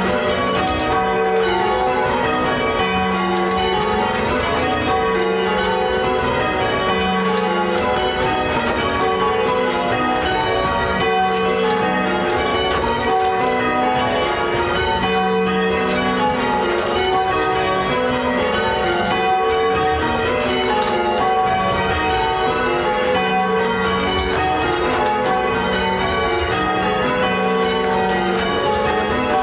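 A ring of eight Gillett & Johnston church bells being rung in changes, the bells striking one after another in a steady, unbroken sequence.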